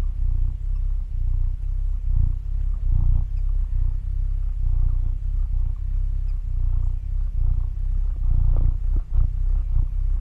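Domestic cat purring close to the microphone, a steady low rumble, with a few sharp clicks near the end.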